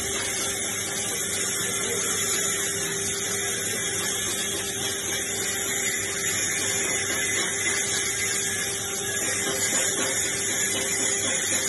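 Steady electric buzz and hiss from a stick (arc) welding setup, with a constant hum underneath.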